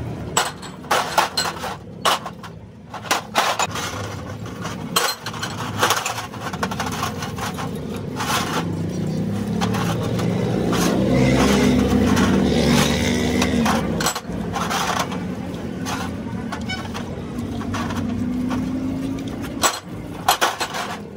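Small steel truck-differential parts (bearings, bolts and nuts) clinking and knocking against each other and a metal tray while being scrubbed by hand in washing liquid, with splashing. Through the middle a vehicle engine runs in the background, rising and falling in pitch.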